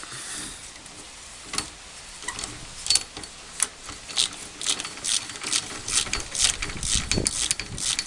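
Ratchet wrench clicking in quick repeated strokes, about two to three a second, while undoing the 17 mm nuts that hold a rear axle shaft.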